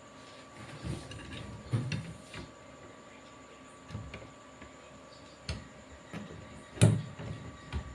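Scattered light clicks and knocks of small tools and electronic parts being handled on a workbench, with one sharper knock about seven seconds in.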